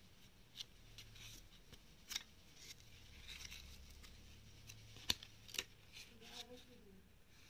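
Pages of a small paper instruction booklet being flipped and turned by hand: soft paper rustling with a few sharp page snaps, the loudest about five seconds in.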